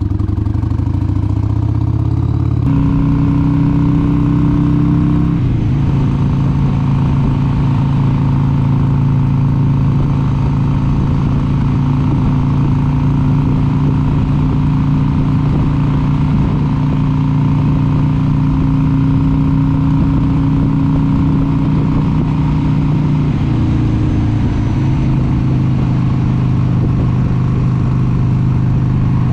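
1996 Harley-Davidson XLH883 Sportster's 883 cc Evolution V-twin pulling away, its note stepping twice in the first six seconds, then running steadily at road speed. Near the end the engine note drops lower.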